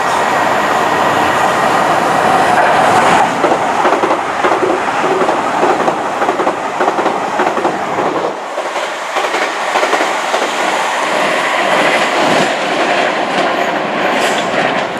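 South Western Railway passenger train running past, its wheels clattering steadily over the rails.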